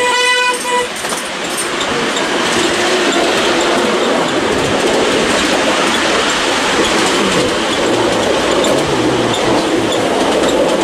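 Miniature railway train running along the track, an even clatter of wheels on rails. The loco's horn is sounding a single steady note that stops under a second in.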